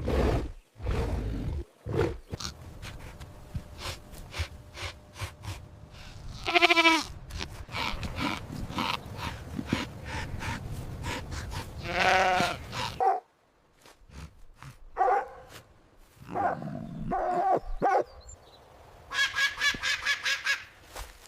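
Recorded farm animal calls: two long bleats about seven and twelve seconds in, a few shorter calls after them, and a quick series of honking calls near the end.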